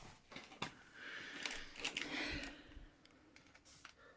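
Small metallic clicks and faint scraping of a key being worked in the cylinder of a Master Lock bike D-lock, jiggled in a lock that won't turn.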